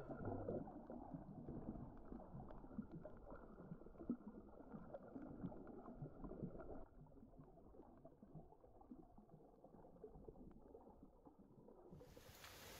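Faint, muffled underwater sound from a camera held below the surface over a coral reef: uneven low rumbling of moving water with scattered faint clicks. Near the end it gives way to a steady open-air hiss.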